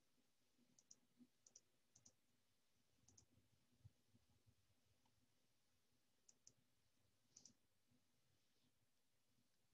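Faint computer mouse clicks, several in quick pairs, over near silence.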